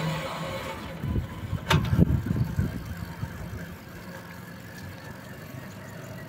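Low wind rumble on the microphone with rolling bicycle and road noise, with a burst of thumps and a sharp knock a little under two seconds in.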